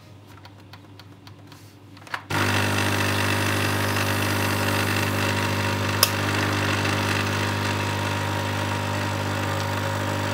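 Coffee machine brewing into a mug. After a couple of seconds of faint ticking, a click is followed by the pump starting with a loud, steady hum that runs on, with one sharp click about six seconds in.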